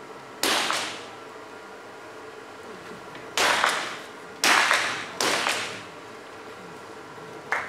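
.22 free pistol shots, about four sharp reports fired within five seconds, each fading quickly in the echo of the indoor range.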